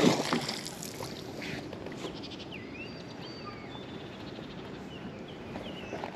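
A neodymium fishing magnet's splash into the river water fading out in the first half second, then quiet lapping water and rope handling with a few faint bird chirps.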